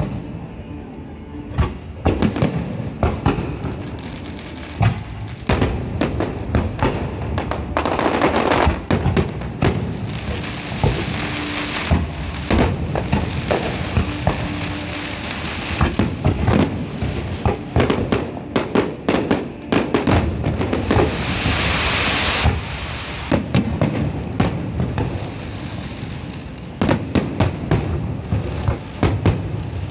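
Aerial fireworks barrage in a show finale: rapid launches and shell bursts, a dense run of sharp bangs several a second. Twice, about eight seconds in and again past twenty seconds, a thick hiss fills in between the bangs.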